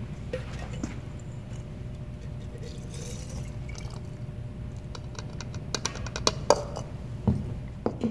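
Muriatic acid poured from a measuring cup into a glass mason jar of gold-plated pins, followed by a run of sharp clicks and knocks in the last couple of seconds as the cup and jar are handled and set down, over a steady low hum.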